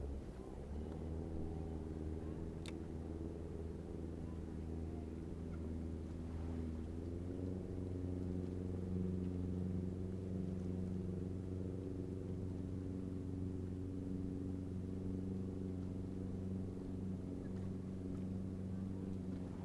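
An engine running steadily with a low hum, its pitch stepping up slightly about seven seconds in.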